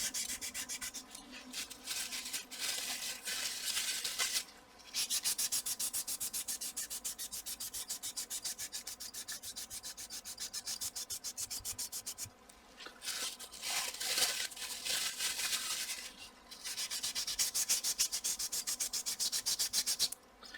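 Quick back-and-forth scrubbing on a graphics card cooler's metal contact plate, wiping off old thermal paste, in several spells with short pauses between them.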